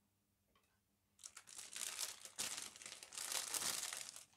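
Clear plastic bag crinkling as it is handled and pulled away, starting about a second in and going on in uneven rustling bursts.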